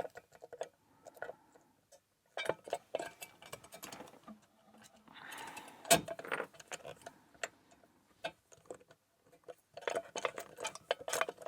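Irregular small metallic clicks and clinks of a padlock and lock-picking tools being handled, with one sharper click about six seconds in.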